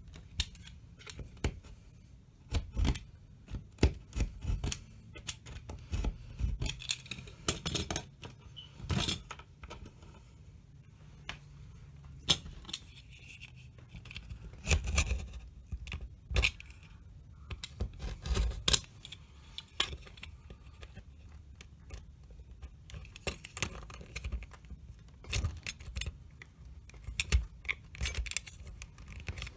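A craft knife blade scraping and prying at the edge of dried ready-mix filler and the wooden matchstick frame around it: irregular clicks, scratches and small snaps, in clusters with short pauses.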